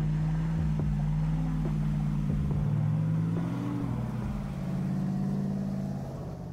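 Lifted Hummer H2 on oversized mud tyres, its engine running steadily as it drives through muddy water, with a few light knocks in the first half.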